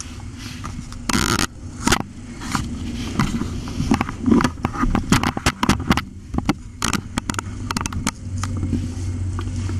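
Kittens scrabbling about on fleece bedding: rustling and scratching with many small sharp clicks, over a steady low hum.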